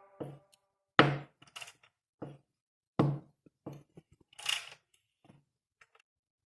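Metal tools and engine parts clinking and knocking against each other during engine teardown: about six sharp knocks roughly a second apart, then a short rustle about four and a half seconds in.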